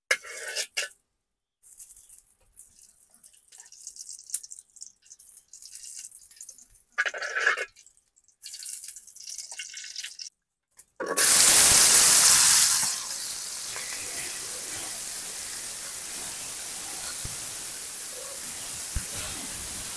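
Short bursts of noise broken by silences. About eleven seconds in, a loud rush of water starts and settles after a couple of seconds into a steady hiss of running water.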